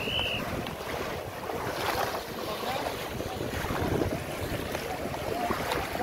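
Legs wading through knee-deep seawater, water splashing and churning around them, with louder splashes about two and four seconds in. Wind rumbles on the microphone throughout.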